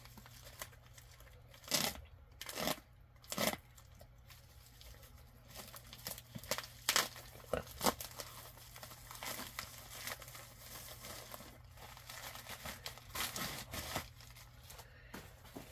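A white plastic mailer bag being torn open by hand, with several short, sharp rips and crinkling in between, then rustling as comic books are slid out of it near the end.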